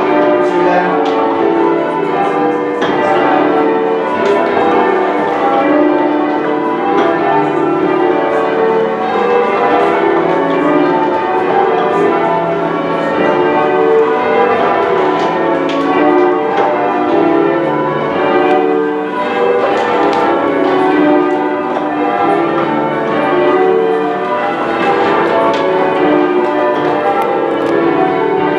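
Ring of ten church bells being change-rung, struck one after another in a continuous, overlapping peal with ringing tones hanging between strikes.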